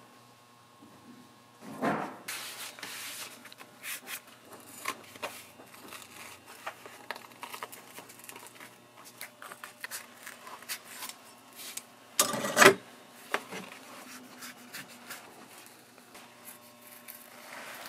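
Shoemaker's knife trimming the edges of insole layers held in the hand, a run of short scraping cuts and handling rubs. Two longer, louder cutting strokes stand out, one about two seconds in and the loudest near twelve seconds in.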